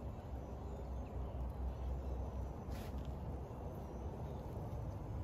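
Low, uneven outdoor rumble, with a brief soft rustle about three seconds in.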